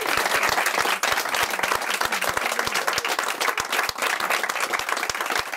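A roomful of guests applauding, many hands clapping steadily.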